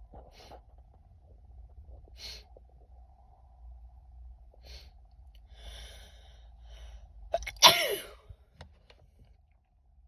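A woman sniffing and taking short hitching breaths, then one loud sneeze about three-quarters of the way through, its voiced part falling in pitch.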